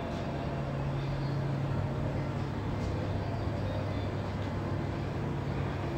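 Steady low mechanical hum under an even hiss: the room tone of an aquarium hall, with its tank pumps and filtration running.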